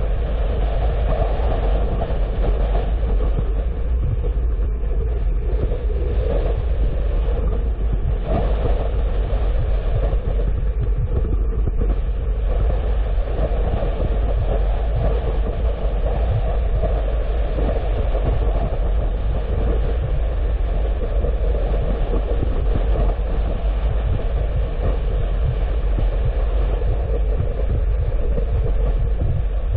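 Steady rumble of a car driving along a road: tyre, road and engine noise without a break.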